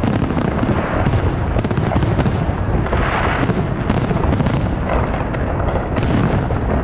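Aerial fireworks going off in a rapid, continuous barrage of bangs and crackling bursts.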